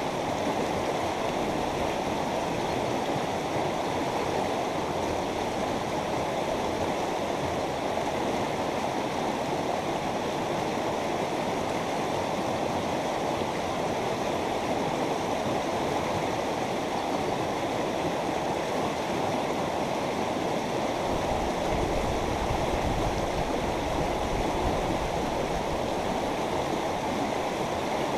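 A fast mountain river rushing steadily over rocks. It is a constant full water noise with no breaks. A deeper low rumble joins in about three-quarters of the way through.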